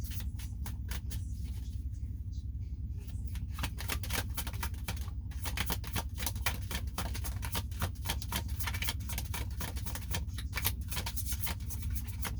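Deck of tarot cards being shuffled by hand: a rapid, irregular run of card clicks and flicks that grows busier about four seconds in, over a steady low hum.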